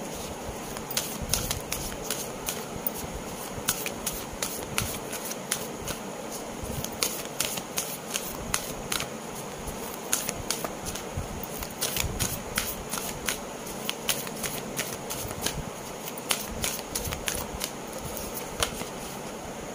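A deck of tarot cards shuffled by hand: a rapid, irregular run of sharp card snaps and clicks as the cards riffle against each other.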